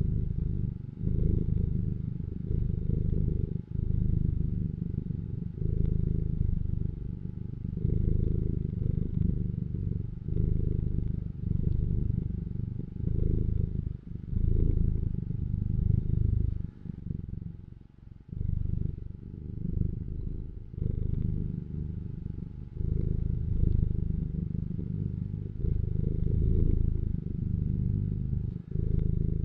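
Domestic cat purring close to the microphone, a low steady rumble that swells and dips about every two seconds.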